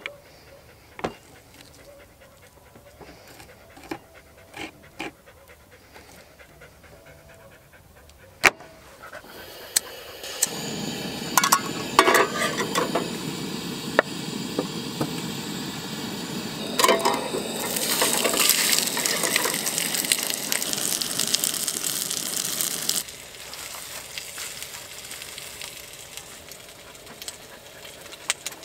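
A knife tapping on a wooden cutting board in scattered knocks; then, about ten seconds in, a camp stove gas burner starts and runs with a steady hiss, and a frying pan sizzles loudly for several seconds before the sound cuts off suddenly.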